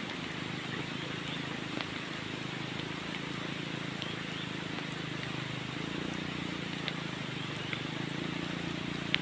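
Small motorcycle engine running at low revs as the bike rolls slowly down a broken, wet road, its hum growing stronger about six seconds in. Under it, an even hiss of light drizzle with a few scattered ticks.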